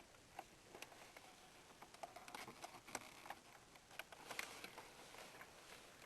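Near silence: faint room tone with scattered light clicks and taps, a few of them a little louder around the middle.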